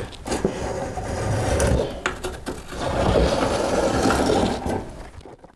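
A pencil and an adjustable marking gauge scraping along a plywood stair tread as a cut line is marked. There are two stretches of scraping with a few light knocks between them.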